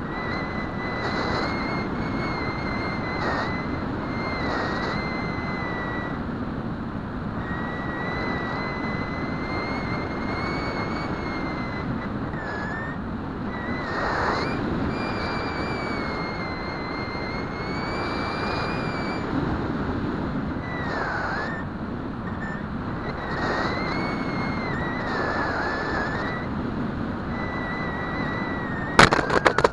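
Bixler foam model plane's electric motor whining, its pitch wavering and dipping several times as the throttle changes, over steady wind rush on the onboard camera's microphone. Near the end the plane touches down and scrapes across dry dirt in a burst of sharp clattering.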